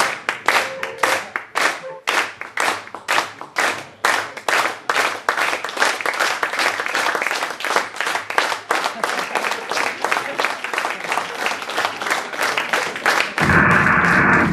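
Audience clapping together in a steady rhythm, about three claps a second, thickening into fuller, less even applause. Near the end, loud music starts suddenly.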